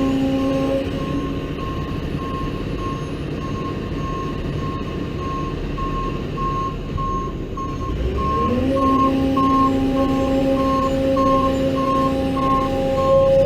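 Heavy machine's backup alarm beeping steadily about twice a second while the machine reverses, over its running engine, which drops in pitch about a second in and rises again about two-thirds of the way through.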